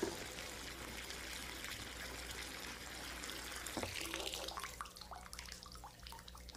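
Water running from a tap into a bathtub, faint and steady, then shut off about four seconds in, leaving a few drips.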